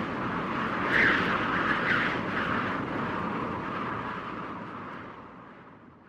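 Steady rushing noise, strongest in the upper middle range, swelling twice early on and then fading away toward the end.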